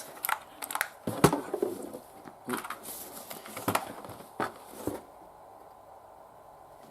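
Handling noise: irregular knocks and rustling as a boxed mouse and its packaging are picked up and handled, stopping about five seconds in.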